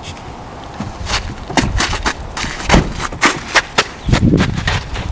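Hurried footsteps crunching on packed snow: a rapid, irregular run of sharp thuds and crunches that starts about a second in.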